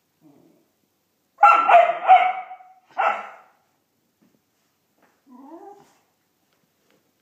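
Polish Lowland Sheepdog barking: three sharp barks in quick succession about a second and a half in, one more about a second later, then a softer, lower vocal sound near the end.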